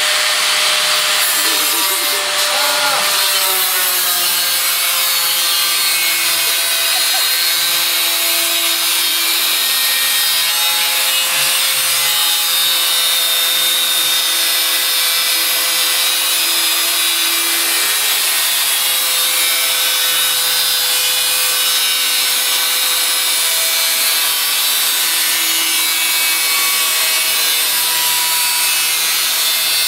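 Angle grinder running continuously against sheet steel, a steady harsh grinding noise. The motor's whine drops a little in pitch a few seconds in as the disc takes load.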